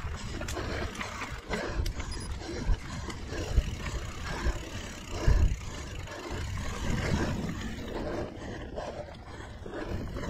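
2017 Liv Pique 3 mountain bike ridden on a dirt singletrack, heard from a chest-mounted camera: a steady rumble of wind and tyres on the microphone, with a handful of sharp thumps from bumps in the trail around the middle.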